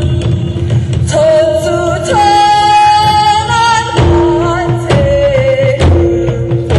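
Drum ensemble playing with a singing voice over it. The voice holds one long high note for about two seconds midway, and sharp drum strokes come thicker near the end.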